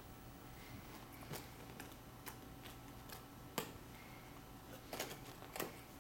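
Scattered light clicks and taps of cardboard jigsaw puzzle pieces being handled and set down, about five in all, with a sharper tap a little past halfway.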